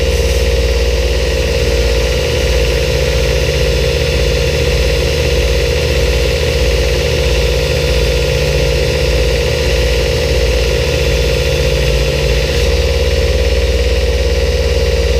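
Belt grinder running steadily with a flat platen. From about two seconds in until near the end, a heat-treated steel knife blade is held against the belt, grinding off the scale.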